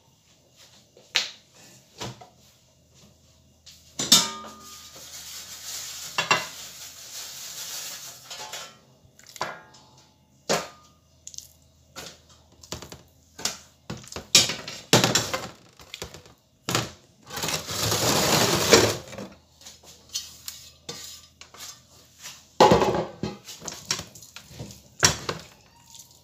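Kitchen handling noise: scattered knocks and clinks of a metal tray and dishes being moved and set down, with two longer scraping, rustling stretches, the louder one past the middle.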